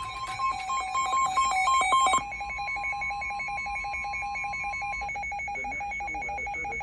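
Emergency alert warning tones: about two seconds of loud, choppy electronic beeps at two pitches, then a fast, even, phone-like pulsing beep that sounds the alert before a severe thunderstorm warning is read.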